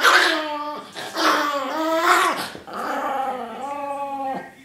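Small dog growling in three drawn-out, whiny calls that rise and fall in pitch, guarding a mango as a hand reaches for it.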